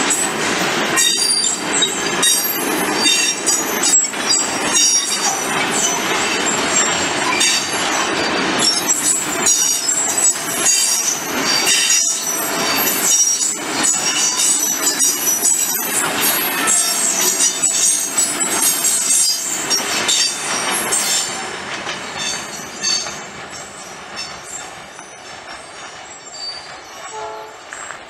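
Loaded freight train rolling past, its steel wheels squealing shrilly and clattering over the rails. The noise fades away over the last several seconds.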